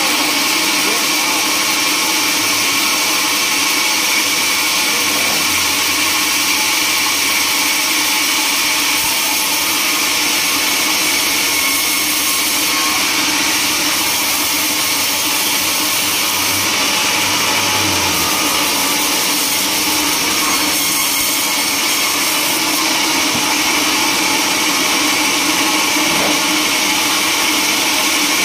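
Band sawmill running and cutting through a teak log: a steady, dense whine and hiss of the blade in the wood, with the machine's drive running underneath.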